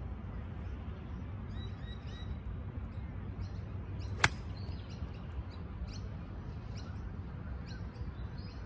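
A single sharp click of a golf wedge striking the ball about four seconds in, over a steady low background rumble.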